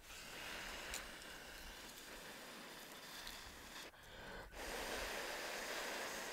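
A person blowing hard on a campfire's embers in two long breaths, a short pause for air between them, with a faint crackle or two from the fire.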